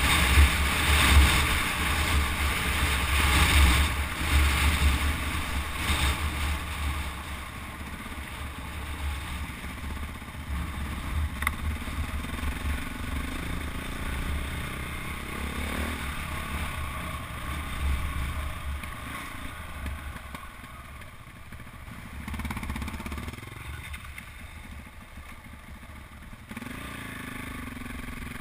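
KTM 400 EXC enduro bike's single-cylinder four-stroke engine running on the move, its revs rising and falling as the throttle is worked. Wind buffets the microphone heavily for the first several seconds.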